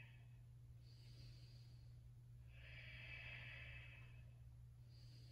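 Faint, slow breathing of a woman in a held yoga pose: a short breath about a second in, a longer one from about two and a half to four seconds, and another short one near the end. A low steady hum runs underneath.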